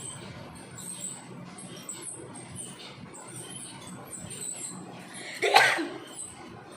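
A woman sneezing once, short and loud, about five and a half seconds in. The sneeze is brought on by tickling inside her nose.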